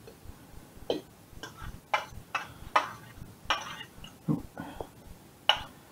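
A metal fork clinking and scraping against a stainless steel saucepan and a china plate while forking rice out of the pan: a series of short, irregular clinks, roughly two a second.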